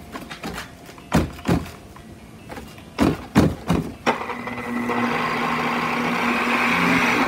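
DeWalt polisher with a foam buffing pad on stove glass: a few knocks in the first seconds, then from about four seconds in the motor runs steadily, a constant hum under the hiss of the pad buffing compound across the glass to wear out embedded ash haze.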